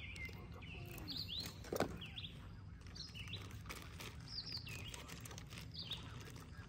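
Small songbirds chirping repeatedly over a steady low outdoor rumble, with one brief louder sound just under two seconds in.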